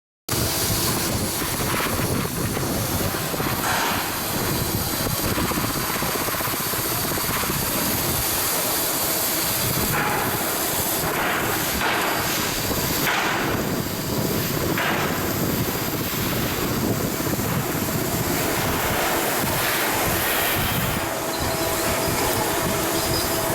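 Shipyard work noise: a steady, loud mechanical roar of tools and machinery, with brief hissing rushes now and then.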